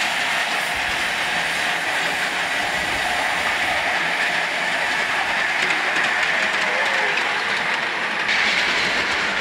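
Miniature ride-on railway train, a small electric locomotive hauling passenger cars, rolling past on raised steel track: a steady rolling noise of its wheels on the rails.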